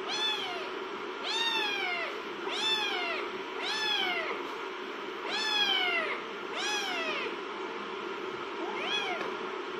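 Kittens meowing repeatedly: seven high, thin calls, each rising and then falling in pitch, about one a second with a longer pause before the last, over a steady low background hum.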